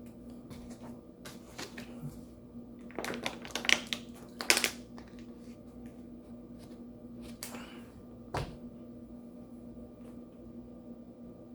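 Scattered clicks and knocks of things being handled, busiest about three to four and a half seconds in, with one low thump past the eight-second mark, over a steady low hum.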